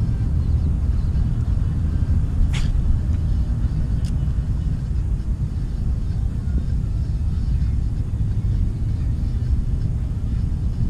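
Wind buffeting the microphone: a steady, uneven low rumble. One brief sharp high sound cuts through it about two and a half seconds in.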